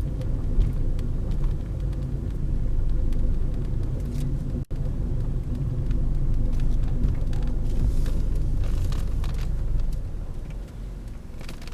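A motor vehicle's low, steady rumble of engine and road noise, with a split-second dropout about five seconds in.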